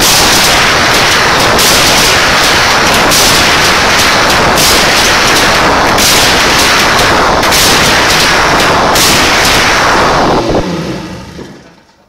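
Yamaha 1200 two-stroke engine running very loud and steady on a bench stand, then shut off about ten and a half seconds in, the sound dying away over the next second or so.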